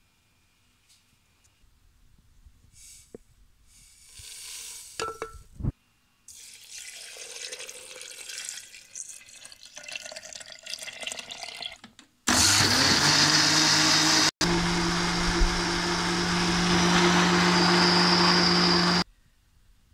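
Milk pouring into a blender jar over strawberries and sugar, then an electric blender motor running at a steady full speed for about seven seconds with a brief break near the start, cutting off sharply.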